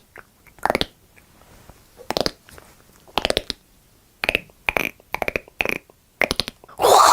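A man making a vocal sound effect with his mouth: a string of about nine short, sharp bursts with brief gaps between them, then a louder continuous sound starting near the end.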